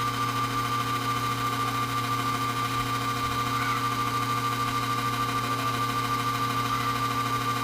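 A 450-watt ATX PC power supply switched on and running, giving a steady, unchanging hum.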